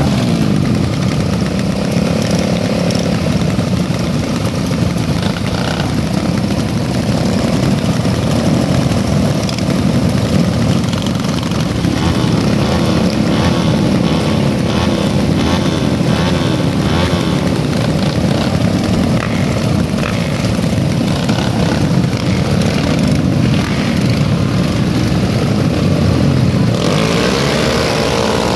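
Several small motorcycles idling together, the riders blipping their throttles so the revs rise and fall again and again. Near the end the engines rev up as the bikes pull away.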